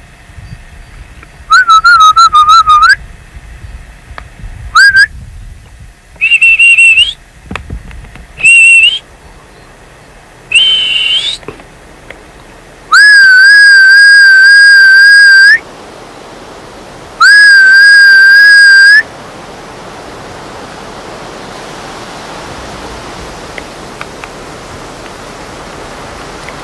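A person whistling loudly at a wolf. First come several short whistles, some warbling and some rising in pitch, then two long steady whistles. After that only a steady rushing noise is left.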